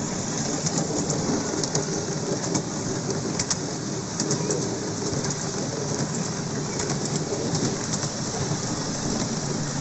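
Miniature railway train rolling along the track, a steady rumbling clatter of its wheels on the rails with scattered clicks.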